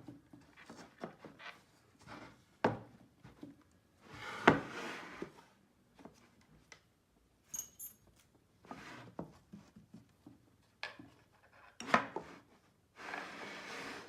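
Engineered-wood drawer panels being handled and fitted together: scattered knocks and clicks of board against board, the loudest about four and a half seconds in, with short spells of scraping and rubbing, the longest near the end.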